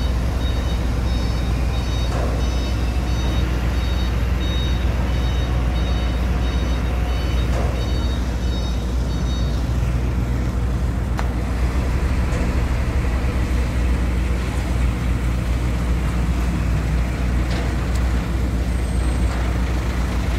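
Heavy diesel engine running steadily with a low rumble, with a repeating electronic warning beep over it that stops about halfway through.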